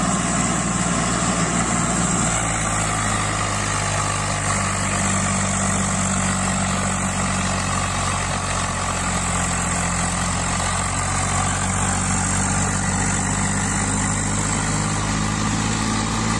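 An engine idling with a steady, even low hum that stays the same throughout.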